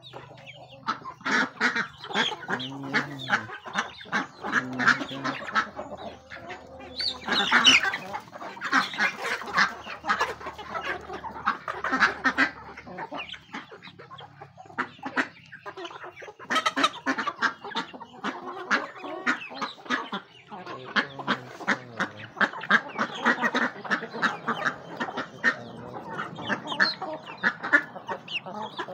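A flock of chickens and ducks feeding on rice: clucking and other bird calls over a dense, rapid clicking of beaks pecking at the ground.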